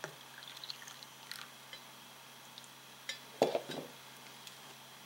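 The tail end of hot tea pouring from a stainless steel pot into an insulated cup, trailing off into a few faint drips. About three and a half seconds in comes a short knock as the pot is set down on the wooden table.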